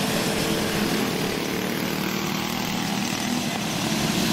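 Several go-kart racing engines running together in a steady, overlapping buzz as the karts race.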